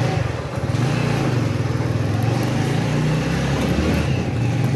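Motorcycle engine picking up from idle as the bike pulls away, then running steadily under way.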